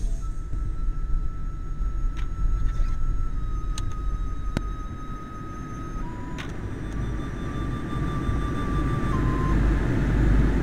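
Low, steady rumble of a car's engine and running gear, heard from inside the cabin, dipping midway and then building again. A thin, steady high whine runs over it and steps down in pitch twice, with a few faint clicks.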